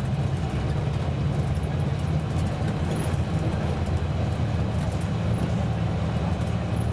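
Karosa C954E bus's diesel engine running steadily under way with road and tyre noise, heard from inside the cabin at the front, with light rattling clicks.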